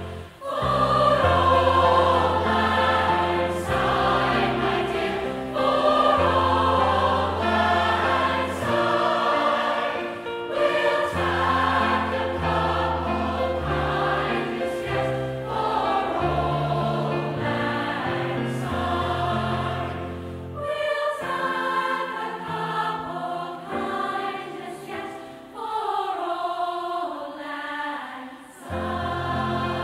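Large mixed choir singing together, with long held low notes underneath that drop out for several seconds in the last third.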